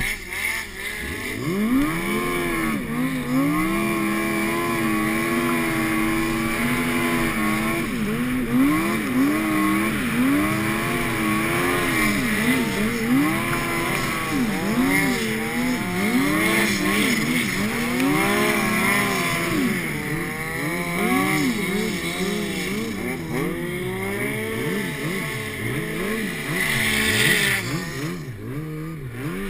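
Yamaha four-stroke snowmobile engine, heard from on board while riding through deep powder. The revs rise and fall again and again every second or two as the throttle is worked through the snow.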